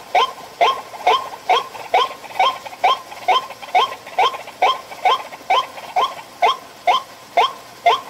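White-breasted waterhen calling: one short note repeated steadily about twice a second, some eighteen times, the lure call at a bird trap.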